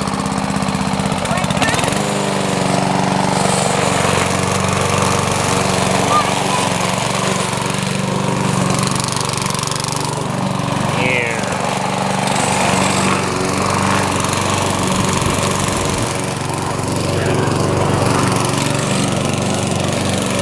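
Small single-cylinder gasoline engine of a walk-behind push mower running steadily as the mower is pushed across the lawn, its note shifting slightly about two seconds in.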